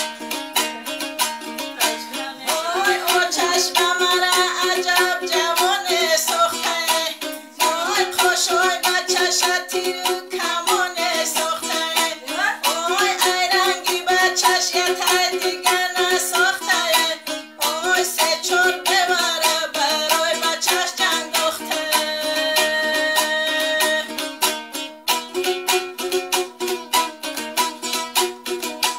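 A woman singing to her own strumming on a long-necked lute, the strumming fast and steady. The voice comes in after about two seconds, with short breaks between phrases, holds a long note near the end, and leaves the lute playing alone for the last few seconds.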